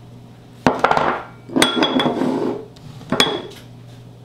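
Kitchen dishes and utensils clinking: three sharp clinks of glass, ceramic or metal, the second and third ringing briefly, with handling noise after the first two.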